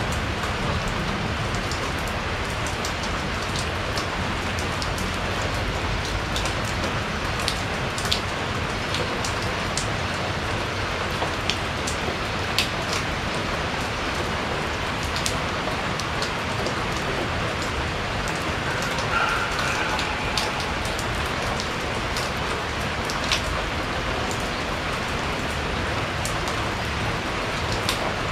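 Steady rain falling on a porch, with scattered louder drops ticking through the even hiss.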